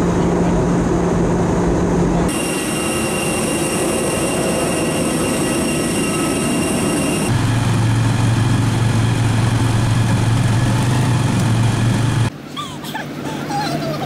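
Steady engine and vehicle drones that change abruptly as the clips cut: first the drone of an airliner cabin in flight, then, about halfway, the engine of a motorcycle-tricycle running steadily during a ride. Near the end the drone drops away to quieter outdoor ambience with short high chirps.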